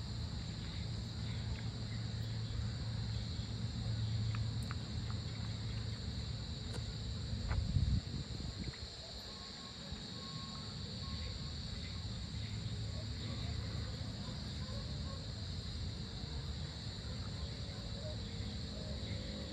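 Evening insect chorus of crickets, a steady high-pitched trill, over a low rumble that swells briefly about eight seconds in.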